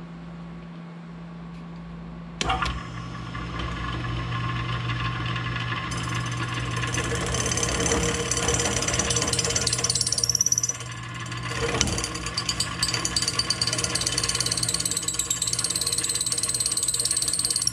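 Milling machine with an end mill milling down an aluminum channel: the machine's steady running hum sets in sharply about two and a half seconds in. The cut then grows louder, with high ringing tones from the cutter in the aluminum, eases briefly past the middle and picks up again.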